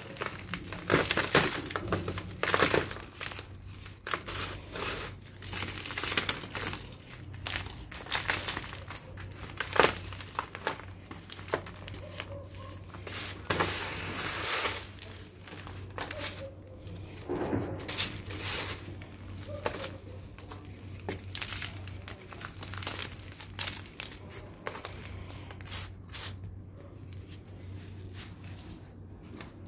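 Lumps of dried sand-and-cement mix being crushed and crumbled between bare hands: irregular gritty crunching and crackling, with grains and powder pattering onto a sheet.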